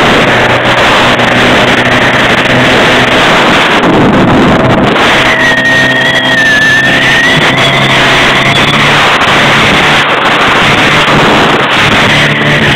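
Motorboat running at speed across open water: a steady engine drone under loud rushing wind and water noise.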